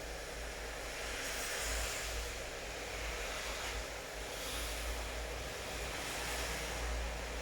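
Steady rain falling, an even hiss that swells and eases every few seconds, over a low rumble.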